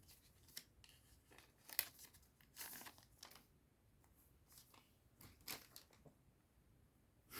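Faint crinkling and tearing of a trading-card booster pack wrapper being opened, in a few short scattered rips.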